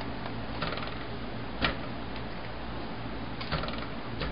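A few short, hard knocks and clatters of frozen banana pieces being dropped and handled in a container. The loudest knock comes about a second and a half in.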